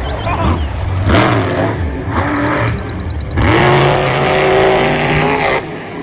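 A car engine running and revving, with several short sliding tones over it. The engine is loudest and steadiest from about halfway through, then cuts off near the end.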